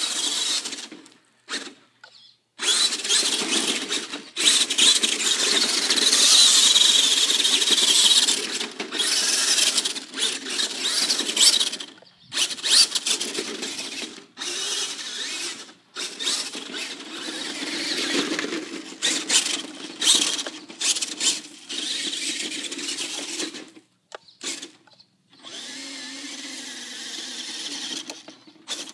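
Radio-controlled monster truck's motor whining in repeated bursts of throttle as it spins donuts in grass and dirt. The whine cuts off briefly between bursts, several times, with one longer stop about 24 seconds in.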